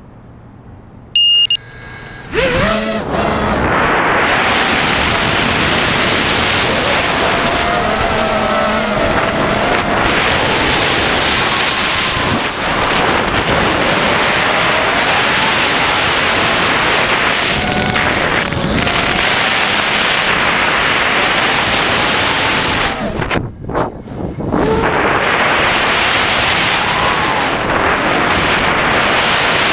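A 5-inch FPV quadcopter's motors and propellers, heard from the camera on its frame: a short electronic beep about a second in, then the motors spin up and run hard with a whine that rises and falls with the throttle, over the rush of wind. Near the end the power drops away briefly a couple of times before coming back up.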